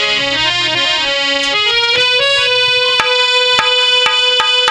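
Instrumental music on a reedy keyboard instrument: a melodic phrase of held notes, then from about two seconds in one long held note with sharp percussion taps over it.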